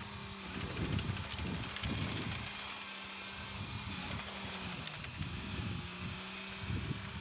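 Heavy construction machine engine running steadily, its pitch dipping briefly about five seconds in as it takes load, over an uneven low rumble.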